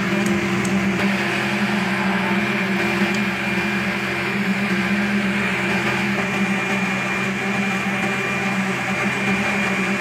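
GOMACO slipform concrete paver running, a steady mechanical hum with a few held tones that never change.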